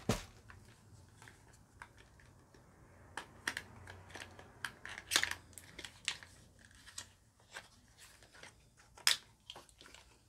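Cosmetic packaging and products being handled by hand: irregular clicks, taps and rustles, with sharper clicks about five seconds in and again about nine seconds in.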